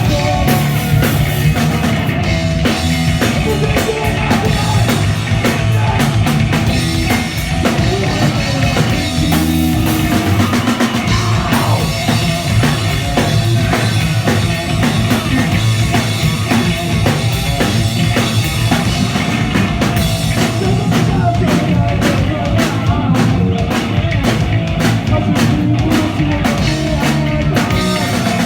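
Punk rock band playing live, loud and continuous, with a driving drum-kit beat.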